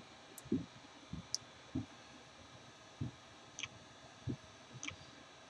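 Faint scattered handling sounds from repair work on a smartphone: soft low knocks and a few sharp little clicks at irregular moments.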